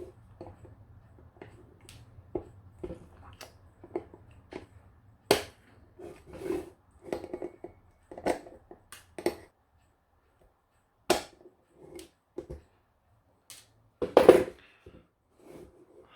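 Irregular knocks, taps and clicks of clock-case parts being handled and set down on a work surface, with a sharp click about five and eleven seconds in and a louder cluster of knocks near the end.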